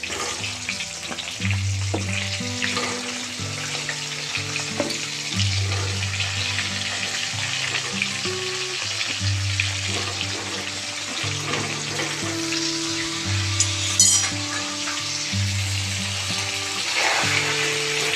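Pointed gourd (potol) pieces sizzling in hot oil in an aluminium kadai as they are dropped in by hand and begin to fry. Background music with held low notes plays underneath, and there is one sharp click about 14 seconds in.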